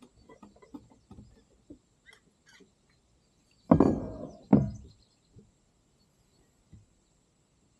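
Light knocks, then two loud thumps a little under a second apart near the middle, typical of a kayak paddle striking the hull.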